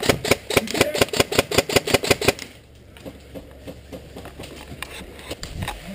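Airsoft rifle firing a rapid string of shots, about nine a second, stopping a little over two seconds in. Scattered faint clicks follow.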